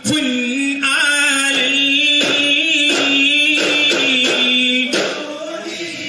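Duffmuttu: voices singing a long, drawn-out melodic line over steady, regular strokes on duff frame drums, roughly two beats a second.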